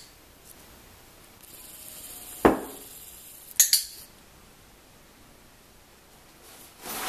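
A dull knock about two and a half seconds in, then two sharp clinking clicks about a second later, with a soft hiss before the knock and a rustling swell near the end.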